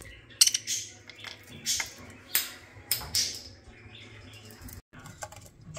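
Budgies pecking and gnawing, a string of sharp clicks and crunches.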